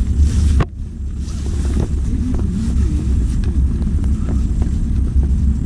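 Heavy machinery's diesel engine running with a steady low rumble, overlaid by wind buffeting the microphone and a few irregular knocks.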